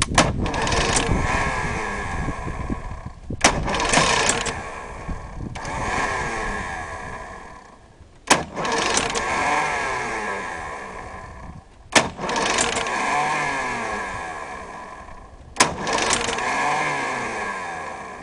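Vintage Mercury outboard motor being cranked over and over without starting: five attempts, each opening with a sharp snap and a whirring spin that fades away over a few seconds. The engine does not catch.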